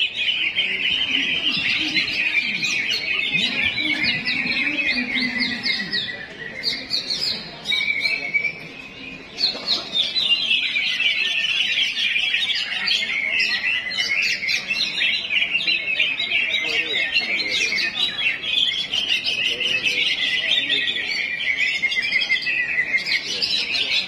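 Many caged songbirds singing at once in a dense, continuous chatter of quick chirps and trills. The song thins out and drops briefly about six seconds in, then comes back full about ten seconds in.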